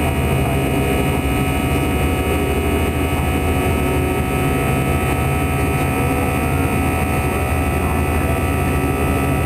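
Steady cabin noise inside an Airbus A320 climbing after takeoff: the even rush of the jet engines and airflow, with several steady tones running through it.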